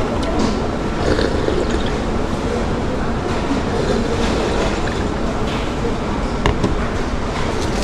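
Steady rumbling noise of a moving vehicle, with a few faint clicks and knocks.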